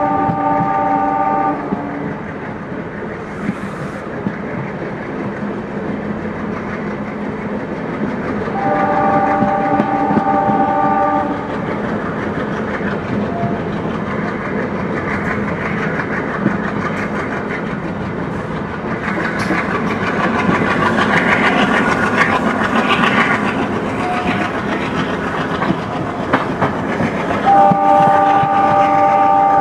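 A WDM3A diesel locomotive's air horn sounds three times: a blast that ends in the first couple of seconds, another of about two and a half seconds around nine seconds in, and a third starting near the end. Under the horn, the train's wheels roll steadily over the rails with a clickety-clack from the coaches.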